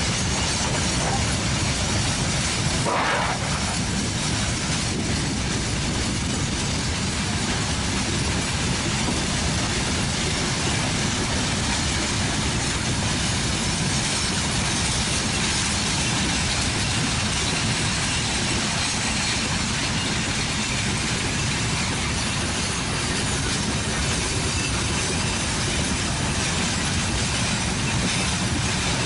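Broad-gauge freight wagons rolling past: a steady rumble and rattle of wheels on rail that keeps up without let-up.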